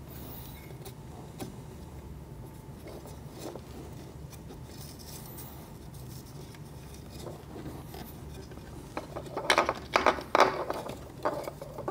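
Faint rubbing and scraping of wires and parts being handled against a coffee grinder's body as the wires are fished through it, over a low steady hum. The handling gets louder for a couple of seconds near the end.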